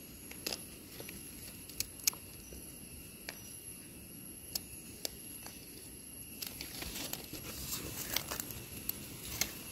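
Scattered soft clicks, scrapes and crackling from a knife scraping soil off wild mushroom stems and from hands working through dry leaf litter. The crackling grows denser in the last few seconds.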